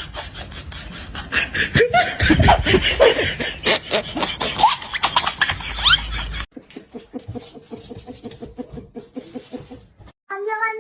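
People laughing over sharp clattering clicks, then a fast, even pulsing sound. Near the end a cat starts a long meow that falls in pitch.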